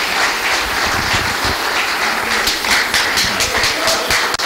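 A congregation applauding, many hands clapping at once in a steady, dense patter.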